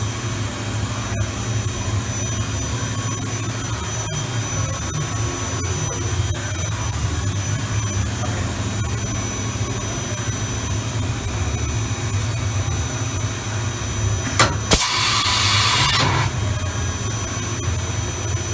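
OKK VM-5 II CNC vertical machining center running with a steady low hum and a faint high whine. About fourteen and a half seconds in come two sharp clicks, followed by a hiss lasting about a second and a half.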